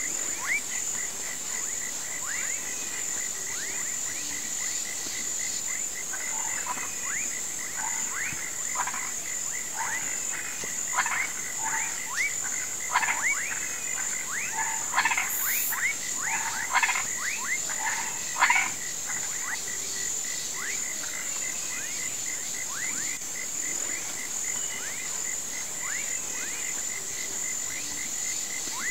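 Chorus of marsh frogs and toads calling: many short calls, many of them sweeping downward in pitch, thickest through the middle stretch, over a steady high-pitched drone and a pulsing mid-high tone.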